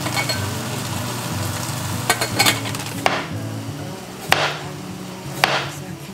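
Kitchen knife slicing through a raw carrot onto a wooden cutting board: several sharp chops from about two seconds in, the last two about a second apart.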